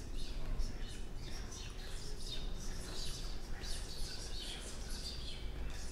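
Birds chirping, with many short, quick calls over a steady low background rumble.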